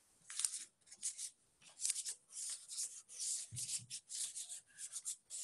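A blue pastel rubbed hard back and forth over paper with a leaf underneath, in quick scratchy strokes, several a second, making a leaf rubbing. A soft bump about halfway through.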